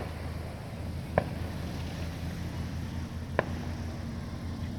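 Fireworks going off: three sharp bangs, a second or two apart, over a steady low hum.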